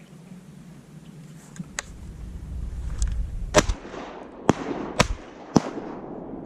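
Shotguns firing at ducks: four sharp blasts in quick succession, starting a little past halfway, about half a second to a second apart.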